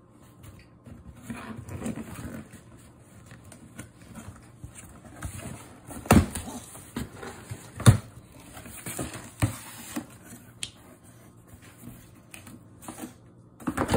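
A cardboard shipping box being opened by hand: tape and flaps pulled, cardboard rustling and scraping, with two sharp knocks against the box about six and eight seconds in.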